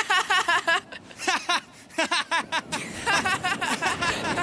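Young boys' voices laughing heartily in several bouts of short, quickly repeated "ha-ha" syllables.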